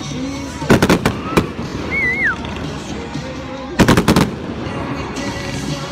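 Aerial fireworks bursting in two quick clusters of sharp bangs, about a second in and again near four seconds.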